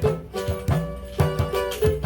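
Samba de roda music between sung chula verses: string instruments and percussion playing a steady beat of about two to three strokes a second.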